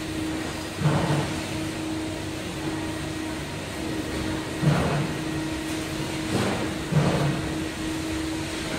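Commercial chicken pressure fryer running sealed during a pressure-frying cycle: a steady mechanical hum, with several brief louder surges a few seconds apart.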